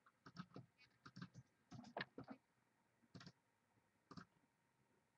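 Faint computer mouse and keyboard clicks in a handful of short clusters, as a randomized name list is copied and pasted into a spreadsheet.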